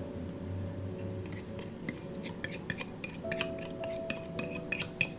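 A kitchen utensil clinking and scraping against a mixing bowl in a run of quick, light clicks as cake batter is scraped out into the rice cooker's inner pot, over soft background music with held notes.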